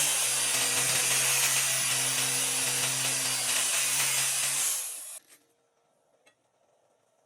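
Stick welding arc crackling and hissing steadily for about five seconds, starting suddenly and cutting off as the arc is broken.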